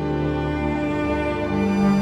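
Background music: slow instrumental music with long held notes, in a sad, string-like mood.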